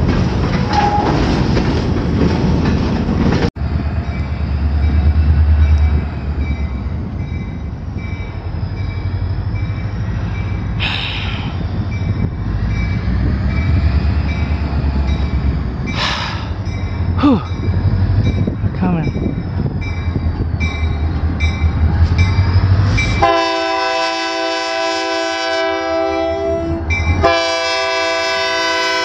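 Freight cars rolling past on the rails. Then a Union Pacific GP40N diesel locomotive drawing slowly closer, its engine a low steady rumble, with some brief wheel squeal. Near the end the locomotive's horn sounds two long blasts.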